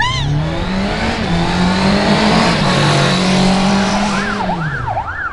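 Car engine running hard with tyres screeching, like a car speeding off or skidding. About four seconds in, a siren starts, wailing quickly up and down.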